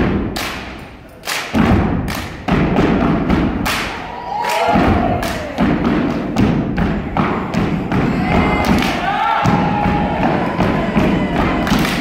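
Step team stomping their feet and clapping their hands in unison, a fast uneven rhythm of loud sharp hits over heavy thudding. Brief shouted voices rise over the percussion twice.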